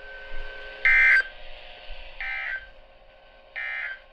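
Emergency Alert System end-of-message data bursts on a NOAA weather radio broadcast: three short buzzy digital tone bursts about a second and a half apart, the first the loudest, signalling that the warning message has ended.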